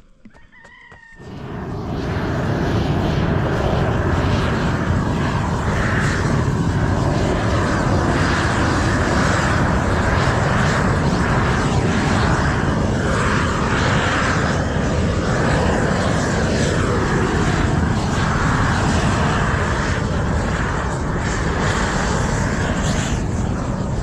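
Gas torch burning steadily and loudly, lit about a second in: the burner that melts Izogam bitumen roofing membrane onto a roof.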